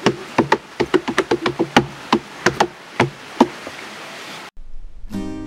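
Quick, irregular hollow knocks, several a second, from hands beating on a tree's moss-covered buttress root like a drum. The knocks stop about three and a half seconds in, and after a short break acoustic guitar music starts near the end.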